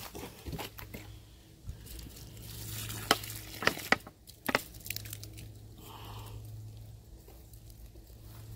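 Water being poured onto loose soil and dry leaf litter, trickling and soaking in. There are a few sharp crackles in the middle.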